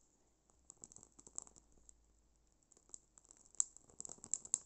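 Dry bay leaf crackling as it burns in a candle flame: faint, irregular small clicks and pops, coming thicker and sharper in the last second or so.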